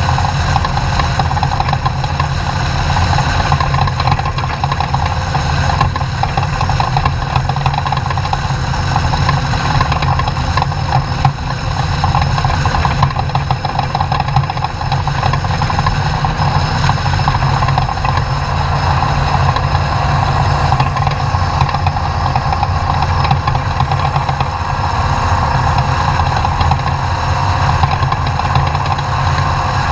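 Off-road race truck's engine running steadily, with a constant noisy rattle over it and no clear revving.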